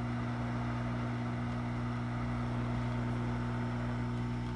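Hot air rework station blowing at maximum airflow onto a USB port: a steady hiss of air over a low electrical hum.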